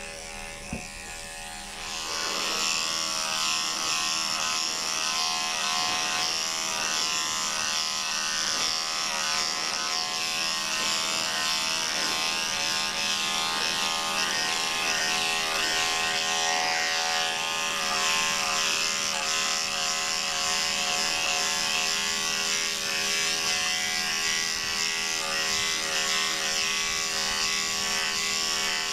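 Electric dog grooming clippers with a 5 blade running steadily, shaving a Maltese's matted coat down short. The steady buzz grows louder about two seconds in as the blade works through the coat.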